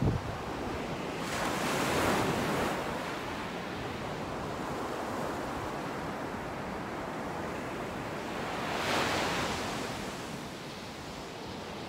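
Ocean surf breaking and washing up a sandy beach, with two louder surges, a second or two in and again about nine seconds in, over a steady wash of water and some wind on the microphone.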